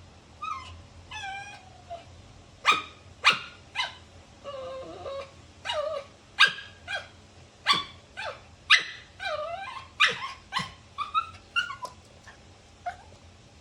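A dog barking and yipping in a dozen or so short, sharp calls, mixed with whiny calls that slide up and down in pitch.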